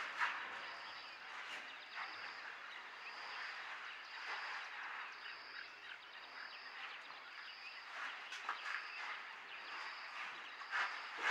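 Outdoor morning bird chorus: scattered chirps and calls, with a high, even note repeating about once a second and a louder sharp chirp near the end.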